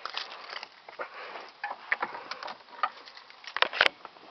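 Car keys and key fob clinking and rustling in the hand, a run of small irregular ticks, with one sharp click near the end.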